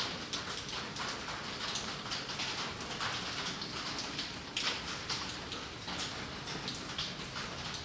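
Raindrops falling on and dripping through tree leaves: a steady hiss with many small, irregular drop ticks.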